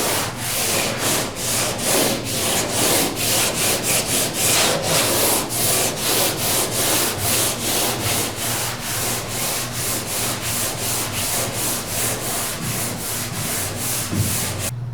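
Power sanding tool stripping paint from a steel car roof, a hissing grind that swells and fades in quick regular passes, about three a second, over a steady motor hum.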